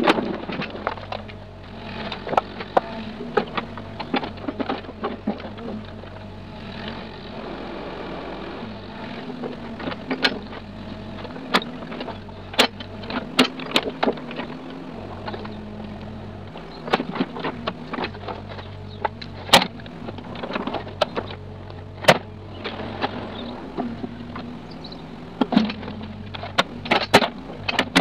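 Mini excavator working soil with its bucket: a steady engine note under frequent, irregular sharp knocks and clanks.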